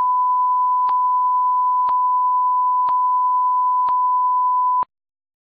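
A steady 1 kHz test tone, one pure pitch, with a faint click about once a second; it cuts off abruptly after nearly five seconds.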